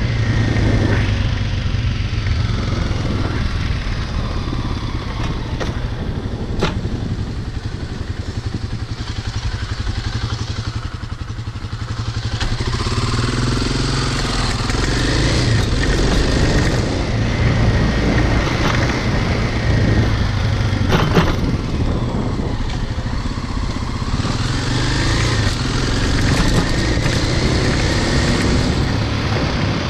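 Kawasaki dirt bike engine running as the bike is ridden. It eases off about ten seconds in, then picks up again, with a couple of sharp knocks along the way.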